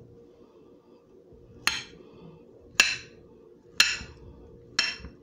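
Knife slicing through bananas on a plate, the blade clinking sharply against the plate four times, about once a second.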